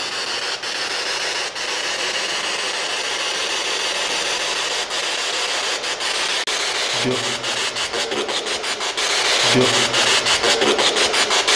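P-SB7 spirit box sweeping through radio stations: continuous static hiss chopped by rapid clicks, which come faster and louder in the second half. Brief snatches of radio voice come through about seven and nine and a half seconds in.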